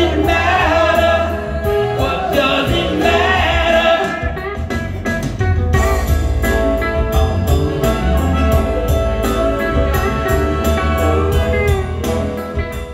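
Live singing through a PA over amplified music, with a heavy bass line and a steady drum beat.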